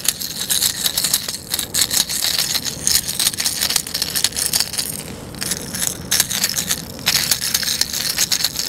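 Rattle beads inside a hard topwater plug clicking as a hooked bluefish shakes on it while the hook is worked out with pliers: a rapid, irregular rattling.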